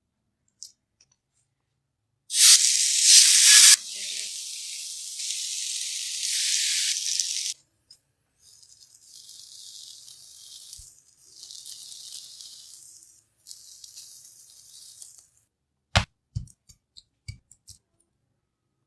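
Sizzling hiss of karahi cooking in a pan: a loud stretch that starts and stops abruptly, then three quieter stretches. A few sharp knocks follow near the end.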